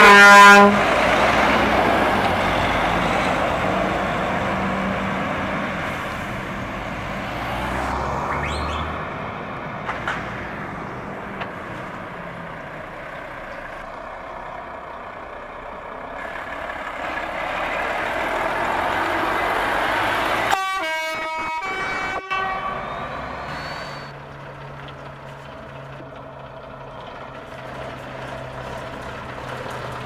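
Trucks with open exhausts running, their engine noise swelling and fading, with a short loud air-horn blast right at the start and a second horn blast of about two seconds some two-thirds of the way in. A truck idles steadily near the end.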